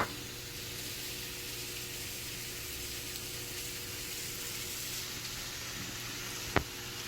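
Food sizzling in a hot frying pan, a steady hiss, with one sharp knock near the end.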